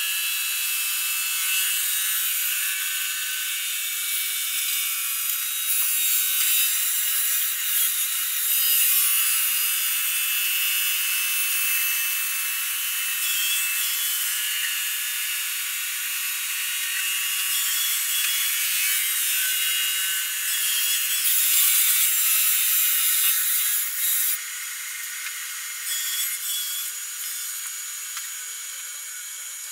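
Marble polishing machine's rotating head grinding across white Ziarat marble slabs: a steady, high-pitched grinding hiss with a faint whine, growing louder for a few seconds at a time.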